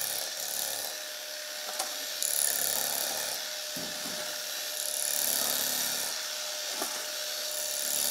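Steel shovels scraping and digging into soil and rubble, a rasping sound that comes in repeated strokes, with an occasional sharp clink.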